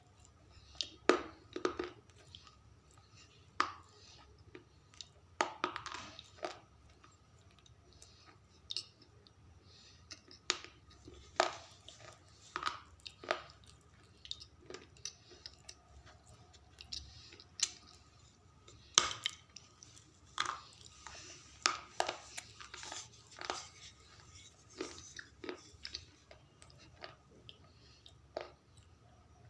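A person biting and chewing slate pencils: irregular sharp crunches and cracks as the brittle pencil breaks between the teeth, with softer chewing in between.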